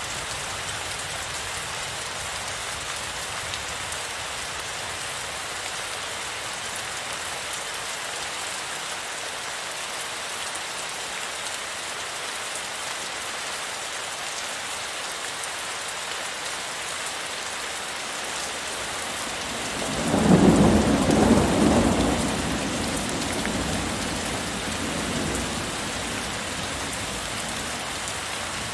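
Steady heavy rain hissing, with a thunderclap about two-thirds of the way through that is loudest for a couple of seconds and then rolls away over a few more.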